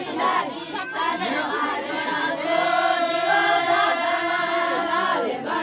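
A group of voices singing a traditional Adivasi wedding ritual song together, with long held notes in the middle.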